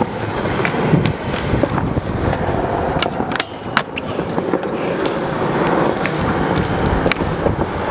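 Skateboard wheels rolling on smooth concrete, with sharp snaps of the tail popping and the board landing during kickflip attempts: a cluster of cracks about three to four seconds in and another near the end.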